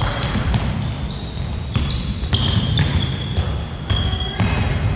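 Basketball game play on an indoor court: the ball bouncing on the floor and sneakers squeaking in several short high chirps, over the noisy echo of the gym.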